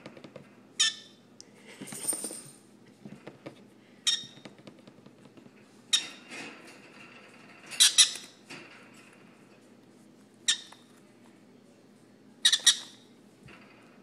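Baby yellow-sided green-cheeked conure giving short squawks every second or two, about eight in all, some of them in quick pairs.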